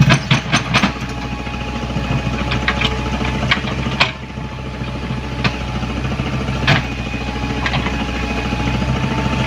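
Komatsu PC75UU mini excavator's diesel engine running steadily, with sharp metallic clanks and knocks now and then: a quick cluster at the start, then single knocks every second or so.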